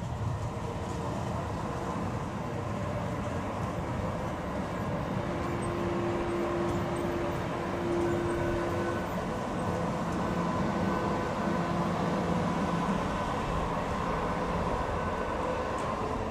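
Stadtbahn light-rail train rolling across a level crossing: a steady rumble of wheels on rails, with steady humming tones from the train that shift partway through.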